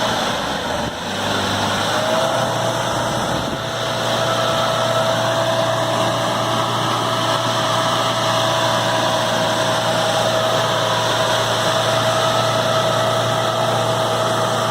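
Mahindra Bolero 4x4's engine running at steady revs, with a steady high whine that steps up slightly about two seconds in and then holds.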